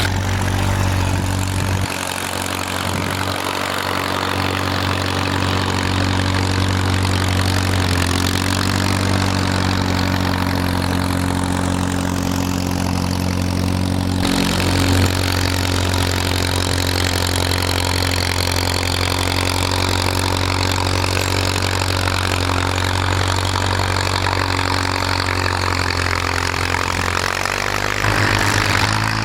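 Farmall M tractor's four-cylinder engine running steadily, with a brief shift in pitch near the end.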